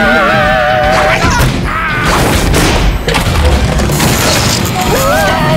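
Cartoon creatures screaming in wavering, quavering cries at the start, briefly again about two seconds in and near the end, over loud crashing and booming sound effects.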